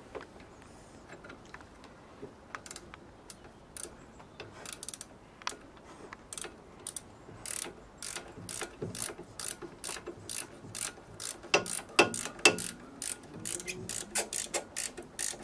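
Ratchet spanner clicking as a brake caliper bolt is done up. The clicks are sparse at first, then quicker and steadier from about halfway, with two louder knocks near the end.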